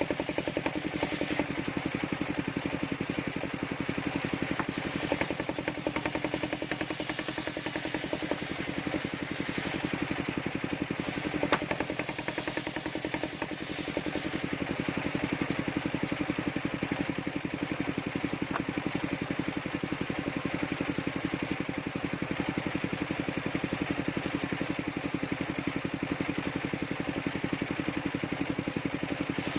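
Engine-driven mobile circular sawmill running steadily, a continuous mechanical drone with a fast, even engine pulse and a steady hum. There is a single sharp click about eleven seconds in.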